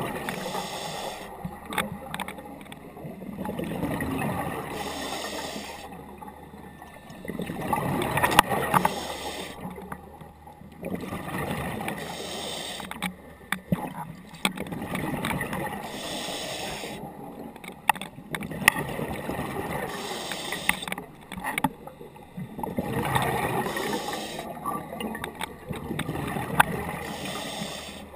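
Scuba diver breathing through a regulator underwater: a rhythmic cycle of breaths, each exhalation a rush of bubbles, repeating every few seconds.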